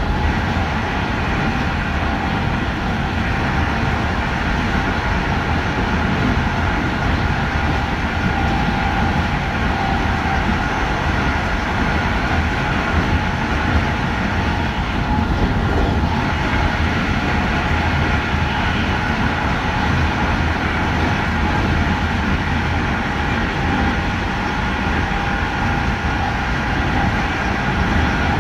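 Passenger train running at steady speed, heard from on board at its rear end: a constant rumble of wheels on rail with a faint steady whine above it.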